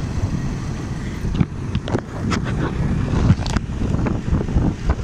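Wind buffeting the microphone of a phone carried on a moving motorcycle, over the rumble of the motorcycle running; from about a second and a half in, sharper gusts and rustles break in.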